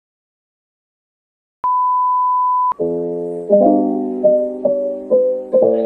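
Silence, then a single steady beep held for about a second, followed by background piano music with gently struck chords starting about three seconds in.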